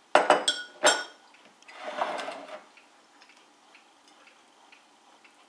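Metal spoon clinking against ceramic dishes, four quick ringing clinks in the first second, then a short rough noise about two seconds in and a few faint taps.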